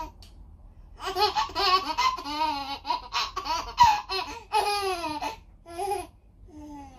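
A baby laughing in a long run of rapid bursts for about four seconds, starting about a second in, then two short laughs near the end.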